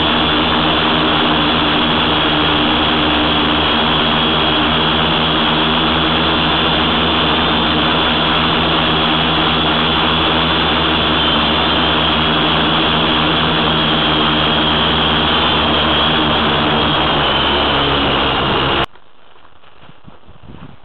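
Tricopter's electric motors and propellers running steadily: a high whine over a low hum. About nineteen seconds in it cuts off abruptly, leaving a much quieter, muffled background.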